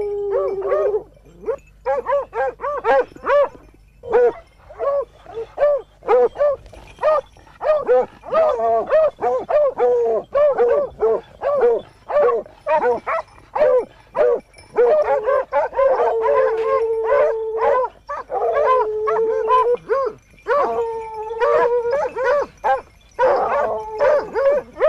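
A pack of boar hounds baying at a wild boar hidden in thick scrub: quick repeated barks, broken by several long drawn-out bays around the middle and toward the end.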